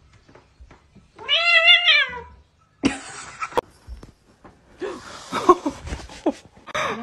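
Tabby kitten meowing: one loud, wavering meow about a second in, followed by shorter, noisier sounds.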